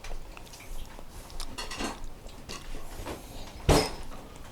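Clatter of dishes and utensils being handled, a run of small clinks and knocks with one sharp, loud knock about three-quarters of the way through.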